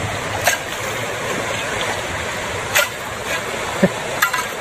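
Shallow stream water running steadily over rocks, with a few short sharp clicks or splashes scattered through it.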